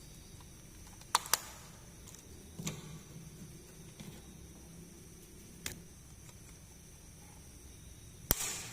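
Sharp clicks and taps of small plastic toy pieces being handled: a quick pair about a second in, softer taps around the middle, and a louder click near the end.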